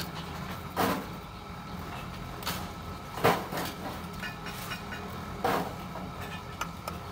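Bricklaying with a trowel on brick and mortar: three sharp knocks or scrapes about two seconds apart. A steady low engine hum runs underneath.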